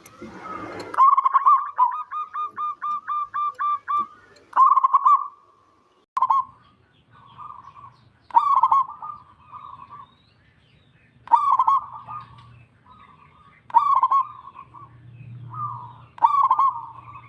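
Zebra dove (perkutut) cooing: a quick run of about ten short staccato notes, then about six rolling coo phrases, each a couple of seconds apart.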